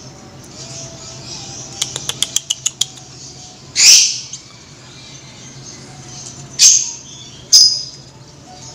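Hand-held doves, a spotted dove and a pigeon × dove hybrid, flapping their wings in short loud bursts, three times. Before them comes a quick run of about eight sharp clicks.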